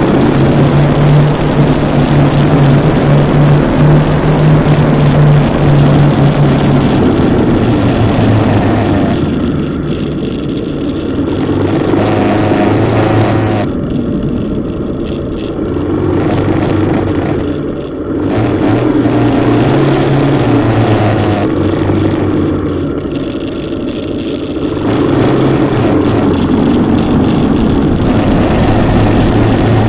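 Motorcycle engine running while riding slowly over rough streets, heard from a bike-mounted camera. The engine note eases off and picks up again three times in the middle as the throttle is let off and reopened.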